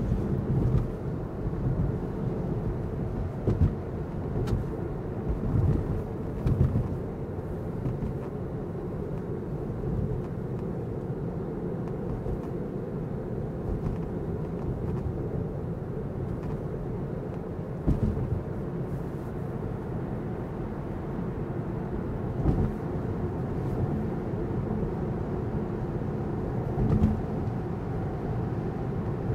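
Tyre and road noise heard inside the cabin of a Tesla Model 3 electric car driving onto the freeway: a steady low rumble, with a few brief thumps.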